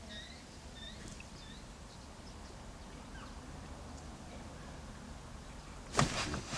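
Birds chirping faintly a few times over a low, steady outdoor rumble, then one short, loud rustling burst of noise about six seconds in, lasting about half a second.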